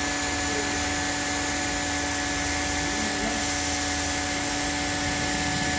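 Hot-air plastic welding gun running steadily, an even airy rush with a constant whine over it, while melting polypropylene welding rod into a seam.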